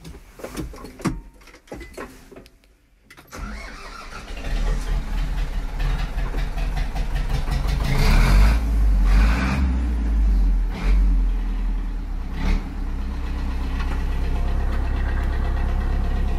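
Zetor tractor's diesel engine cold-started. After a few clicks it catches about three seconds in and runs loud and uneven for several seconds. It then settles into a steady idle for the last few seconds.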